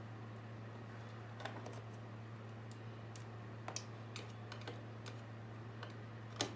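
Scattered light metallic clicks and taps of a small screwdriver working the screws of an accordion's casing, with the sharpest click near the end, over a steady low hum.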